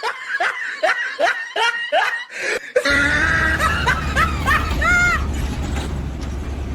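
Quick, high-pitched snickering laughter for about three seconds, then a low steady engine rumble starts suddenly and runs on, with a few short chirps in it shortly after.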